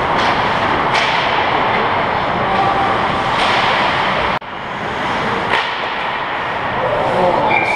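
Ice hockey rink game sound picked up by a camera on the goal: a steady loud rushing noise with a few sharp clacks from sticks and puck. The sound drops out for a moment about halfway through.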